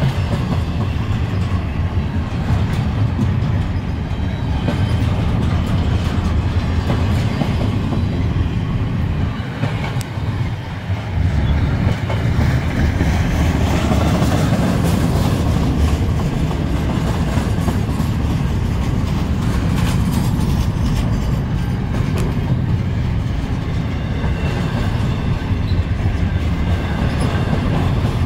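Double-stack intermodal well cars of a freight train rolling past close by, a steady loud rumble of steel wheels on the rails that dips briefly about ten seconds in.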